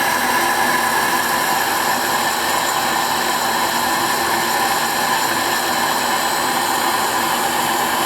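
Homemade lathe running steadily at slow speed while screw cutting, a constant motor whine over an even hiss.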